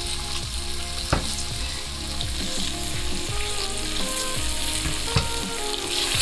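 Chicken wing pieces, onion, garlic and bay leaves frying in olive oil in a hot pan: a steady sizzle, with a couple of knocks as the pan is stirred.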